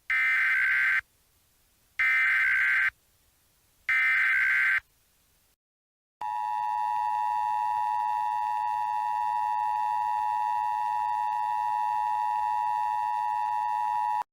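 Emergency Alert System SAME header: three one-second bursts of screechy digital data tones, a second apart. Then, from about six seconds in, the steady two-tone EAS attention signal, which marks the start of a new alert.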